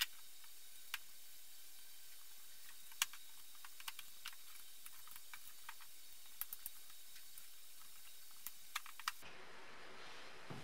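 Scattered light clicks and taps of plastic and metal BMW E30 headlight parts being handled and fitted together by hand, with a few quick clusters of clicks, over a faint steady hiss.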